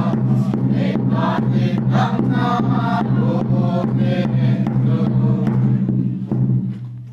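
A small congregation singing a hymn together, unaccompanied voices in unison over a steady low hum, the singing trailing off near the end.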